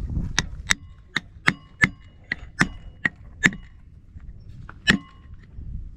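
Hammer blows driving a 2x4 against an elk skull clamped in a vise, knocking out an ivory tooth (canine): about ten sharp strikes, each with a brief metallic ring. The first nine come in quick succession, then there is a pause before the last ones.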